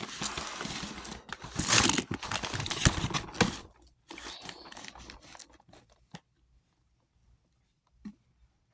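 Snack subscription box being torn open: loud tearing and crinkling of packaging for about three and a half seconds, then fainter rustling and two light knocks.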